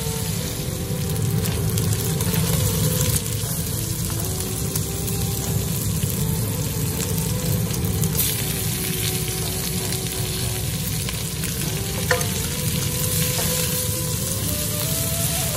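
Chicken strips sizzling as they fry in a nonstick pan, stirred and scraped with a spatula. There is one sharp knock about three-quarters of the way through.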